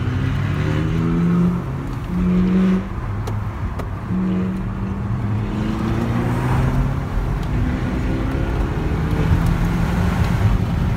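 Car engine accelerating in several bursts, its pitch rising and dropping back between them, over steady road noise heard from inside a moving car.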